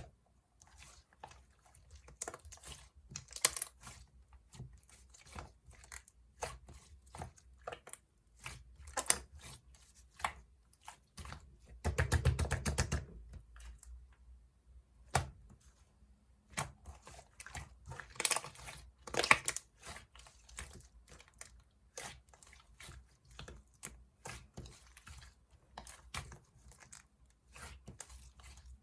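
Mint two-layer slime being squished and stretched by hand: irregular sticky clicks and crackles, with a fast run of them about twelve seconds in.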